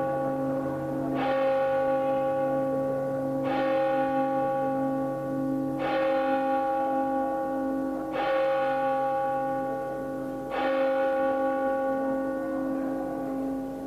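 A bell tolling slowly: five even strokes a little over two seconds apart, each one ringing on into the next.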